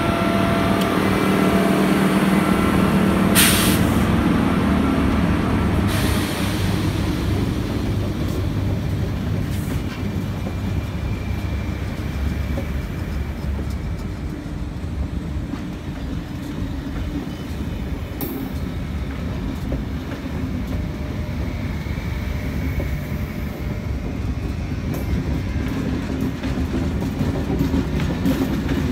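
SNCF BB 7200 electric locomotive moving past with a hum of several steady tones that fades within the first few seconds. It is followed by passenger coaches rolling by with a steady low rumble of wheels on rail, and two sharp clacks at about three and six seconds in.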